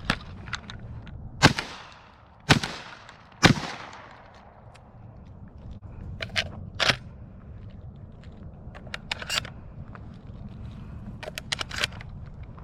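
Three 12-gauge shotgun shots fired in quick succession, about a second apart, each followed by a fading echo. Fainter sharp reports or clicks come later.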